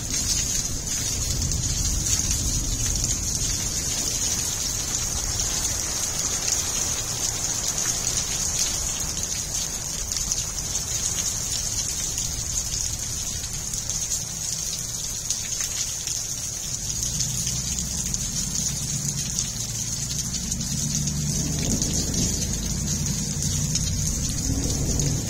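Heavy monsoon rain pouring onto gravel, desert shrubs and a concrete walk: a steady hiss of falling rain with splashing. A low rumble builds during the second half.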